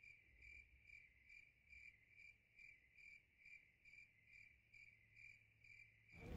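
Faint, steady chirping of an insect, a cricket-like high tone that pulses evenly about two and a half times a second.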